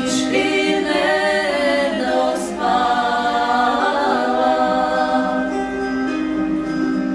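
Three women's voices singing a cappella in harmony, holding long notes.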